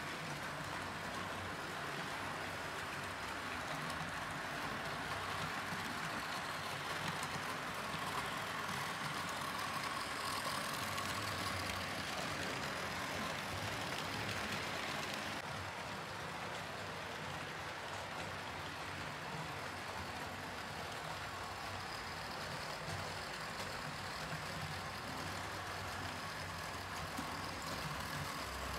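Model freight train running on the layout: a steady whir of the locomotive's electric motor and the wheels rolling on the track. The higher hiss drops away suddenly about halfway through.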